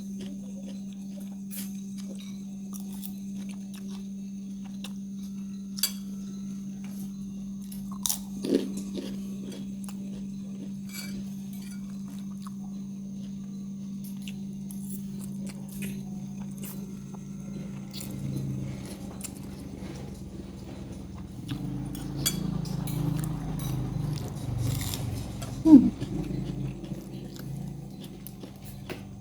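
A person chewing and biting food close to the microphone, with small wet clicks and occasional crunches, over a steady low hum. Near the end there is one short, louder sound with a brief slide in pitch.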